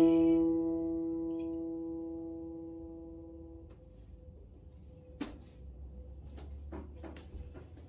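A chord held on a Roland JUNO-DS keyboard synthesizer, fading slowly and cut off about three and a half seconds in. A few faint clicks follow, the first the sharpest, while one faint note lingers.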